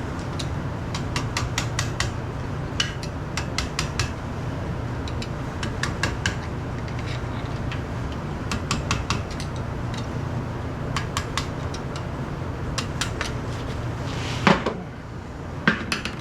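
Small metallic clicks and taps of hand tools working on hydraulic cylinder parts, in irregular quick runs, with two louder knocks near the end, over a steady low hum.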